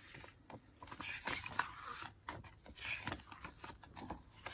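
Paper rustling and flapping as the pages of a wall calendar are turned over, with a few brief sharp rustles.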